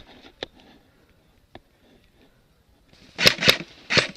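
Airsoft gun firing a quick string of single shots, starting about three seconds in after a few faint clicks.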